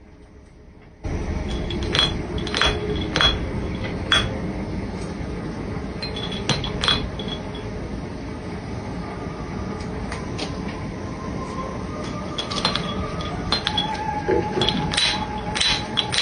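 Irregular light clinks of hard objects struck together, a dozen or so, over a steady background noise.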